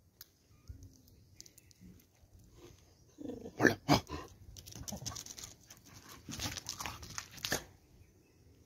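A dog barking in short, loud bursts, the two loudest about three and a half to four seconds in, followed by a run of further barks that stops shortly before the end.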